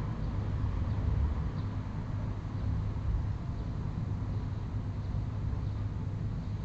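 Steady low hum under faint, even background noise, with no distinct knocks or clicks.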